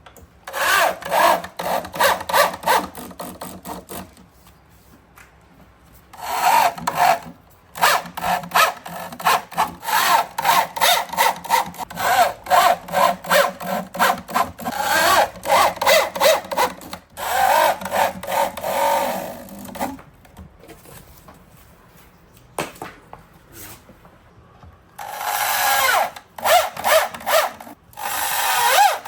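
Rapid rasping strokes of a tool working wood, such as sawing. They come in bursts of a few seconds with pauses between.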